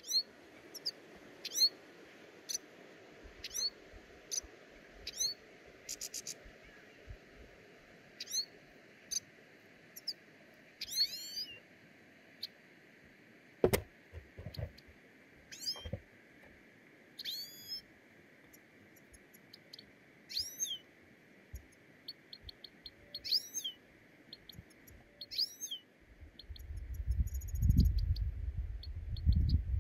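Small birds chirping repeatedly, short high calls about once a second, with a single knock about halfway through. Near the end, wind on the microphone adds a low rumble.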